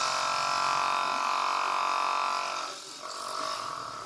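Small electric motor spinning the tin-can drum of a homemade mini concrete mixer, a steady buzzing whine. About two and a half seconds in it drops sharply in level, and a fainter hum carries on.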